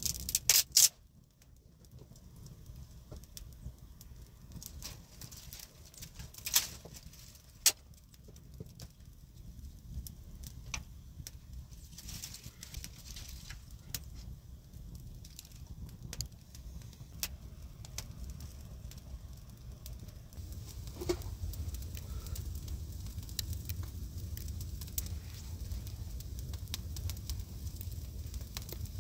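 Campfire of dry twigs and branches crackling, with sharp pops scattered throughout and a cluster of loud cracks in the first second. A low steady rumble runs underneath and grows louder about two-thirds of the way through.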